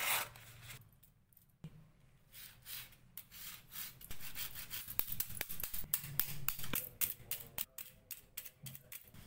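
A knife blade slices through a sheet of paper with a quick ripping swish. Then it is sawed back and forth across the metal rings of a riveted mail sleeve, in repeated scraping strokes with sharp metallic clicks as it catches on the rings.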